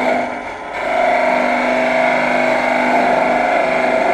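Wood lathe running with a dull turning tool pressed against a spinning pine blank, rubbing and scraping rather than cutting: the tool is dull and makes dust instead of shavings. A steady drone settles in about a second in.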